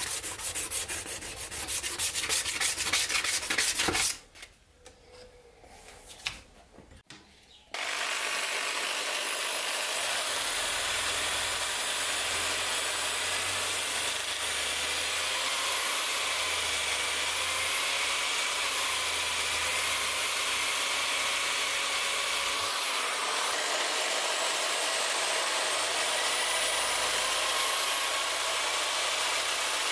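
Sandpaper rubbed by hand in quick strokes over a cast-aluminum handle for about four seconds. After a short lull, a small handheld rotary tool with a wheel starts working the aluminum and runs steadily to the end, its pitch drifting slightly under load.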